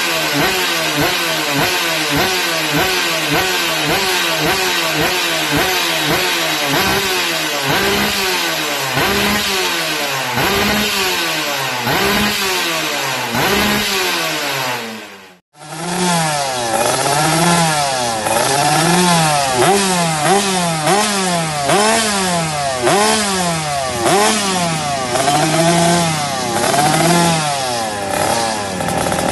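Two-stroke motorcycle engine with a racing exhaust being revved in repeated quick throttle blips, rising and falling about once a second. About halfway through there is a brief gap, then a second two-stroke bike with a racing exhaust revs the same way.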